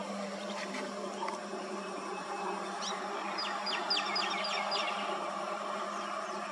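Roadside wildland ambience: a steady low hum under a drone of insects. About three seconds in, a bird gives a quick run of about eight sharp, falling chirps.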